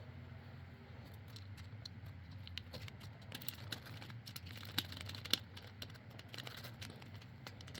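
Faint clicks and rustling of the plastic parts of a replacement GFCI cord plug being handled and fitted together, with a couple of sharper clicks about five seconds in.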